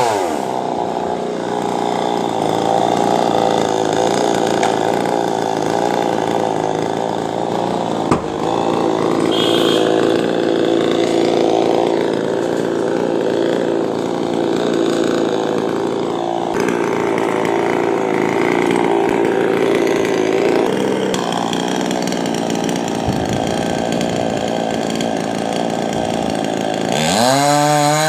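Chainsaw engine running at steady high speed through a coconut palm trunk, then revving up and down near the end.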